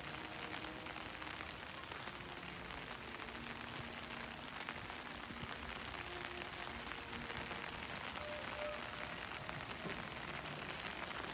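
Steady patter of light rain, a soft even hiss made of many tiny drop ticks.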